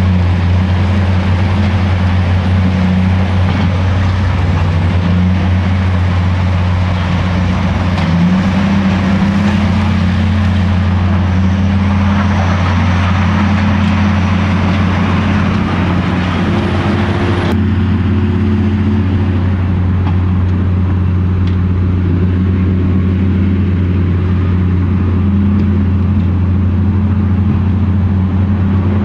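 Caterpillar wheel loader's diesel engine running steadily under load, its pitch stepping up and down as it revs while working, with a mobile screening plant running alongside. The sound changes abruptly a bit over halfway through.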